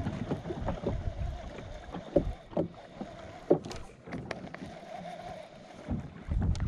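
Wind buffeting the microphone and water lapping against a small boat's hull, with a few sharp knocks about two and three and a half seconds in.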